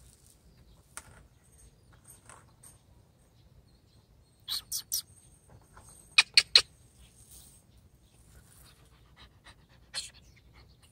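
A dog yapping in short, high yaps: three about four and a half seconds in, three sharper, louder ones just after six seconds, and a single one near the end.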